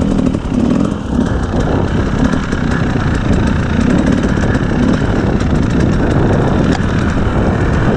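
2017 KTM 250 EXC two-stroke enduro engine running steadily as the bike is ridden along a snowy trail.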